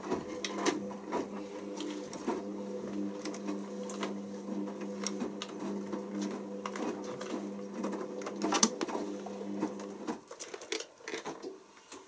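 Hoover Optima OPH714D washing machine's drum motor running a wash tumble in the early load-sensing stage of a cotton pre-wash, a steady motor hum with scattered clicks and knocks. The motor stops suddenly about ten seconds in, at the end of the tumble.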